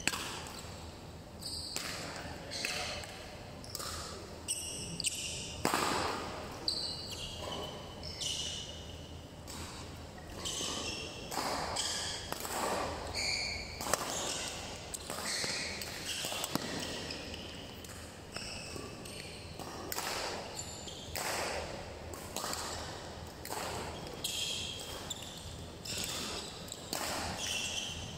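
Badminton rally: rackets striking a shuttlecock again and again at an irregular pace, with short high squeaks of court shoes on the floor between hits.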